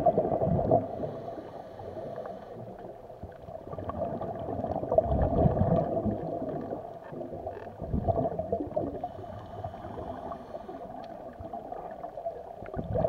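Scuba diver's exhaled bubbles gurgling out of the regulator, heard muffled through the camera's underwater housing: three bubbly surges a few seconds apart, one per breath, with a low underwater rumble between them.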